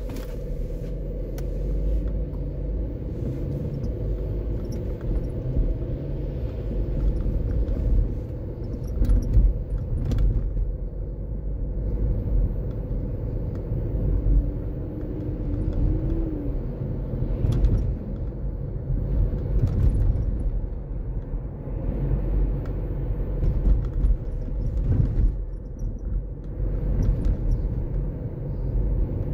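Car driving in city traffic heard from inside the cabin: a steady low rumble of engine and tyre noise.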